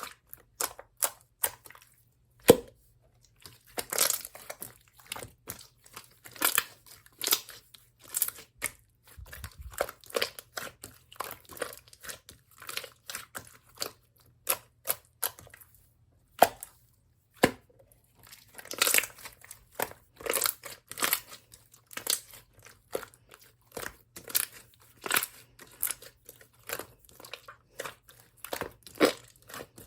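Clear slime being squeezed, stretched and pressed by hand, giving irregular sticky pops and clicks, several a second.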